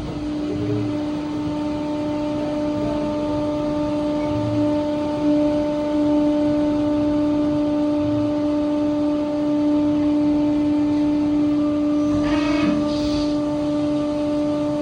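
Broaching machine running during a broaching pass on a truck driveshaft yoke, giving a loud, steady droning hum. A short hiss comes in about twelve seconds in.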